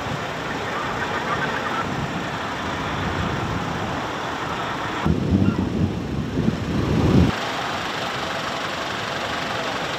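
Fire truck engine running steadily. From about five to seven seconds in, a louder, uneven low rumble starts and stops abruptly.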